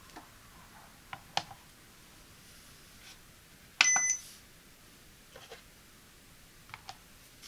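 Light taps as a small box is set on the platform of an Accuteck digital postal scale, then a short electronic beep from the scale as its tare button is pressed, the loudest sound. Near the end, a few soft clicks as a tape measure is set down on the box.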